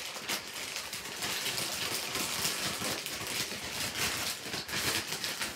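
White plastic Amazon poly mailer bag being pulled and torn open by hand: a continuous crackling rustle of thin plastic, with fine clicks all through, that stops near the end.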